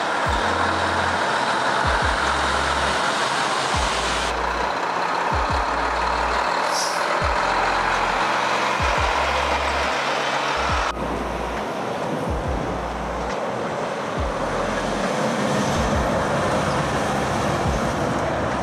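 Large truck driving, its engine and road noise steady, mixed with background music that has a repeating bass line and a kick drum. The truck noise changes abruptly at cuts about four and eleven seconds in.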